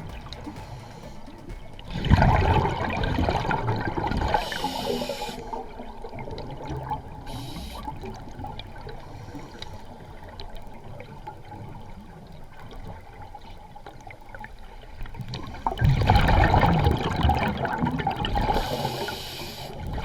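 Scuba diver's exhaled bubbles gurgling and rushing out of the regulator, heard underwater, in two loud bursts about two seconds in and about sixteen seconds in, with quieter breathing noise between them.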